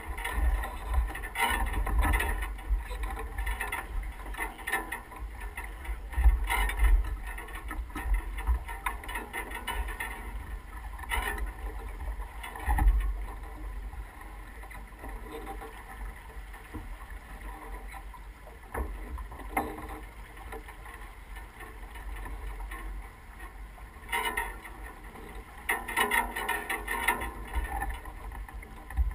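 Wind buffeting the microphone over water rushing and splashing along the hull of an S2 9.1 sailboat under sail, with uneven louder gusts and splashes every few seconds.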